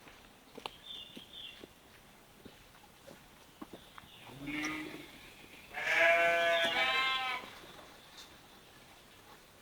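Farm animal bleating: a short low call about four and a half seconds in, then a loud, wavering bleat lasting about a second and a half.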